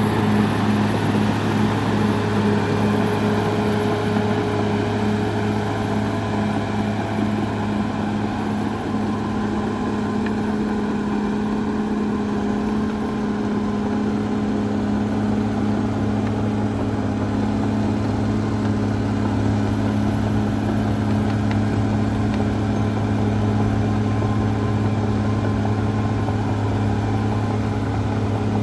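Caterpillar D6R XL bulldozer's diesel engine running at a steady, unchanging speed.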